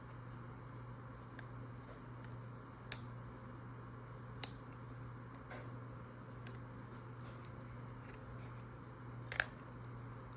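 A small ball clicking and knocking inside a maze puzzle box as the box is tilted: a few sharp, isolated clicks, the loudest near the end as the ball drops to a lower level. A low steady hum runs underneath.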